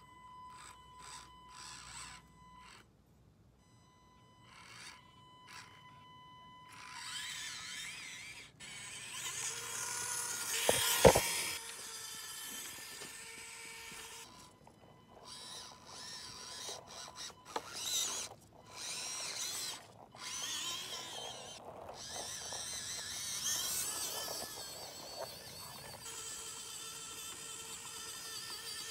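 Axial SCX24 1/24-scale RC crawler's small electric motor whining in short on-off bursts as the throttle is blipped, then running steadily with gear and tyre noise as it drives along. A sharp knock about eleven seconds in.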